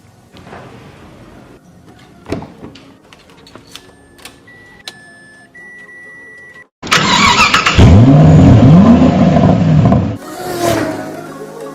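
Car engine starting and revving, the pitch rising and falling a couple of times for about three seconds before dropping off. Faint clicks and a few short electronic beeps come before it.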